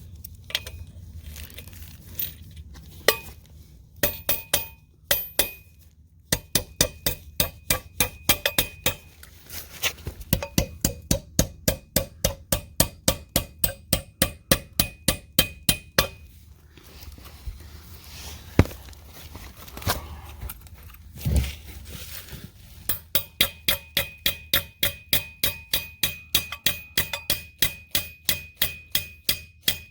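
Hammer striking steel Red Head wedge anchors set in holes drilled in concrete: sharp metal-on-metal blows with a ringing tone, about three a second, in several runs with a pause in the middle.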